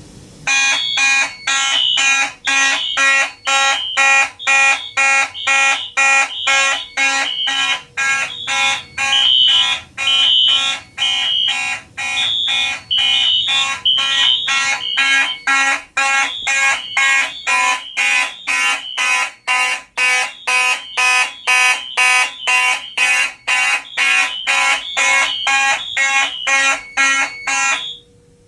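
Several fire alarm horns, Simplex 2903 horn/strobes and a Simplex 4251-20 among them, sounding together in a fast pulsed pattern of about two blasts a second, with the system put into drill from the panel. They cut off suddenly near the end.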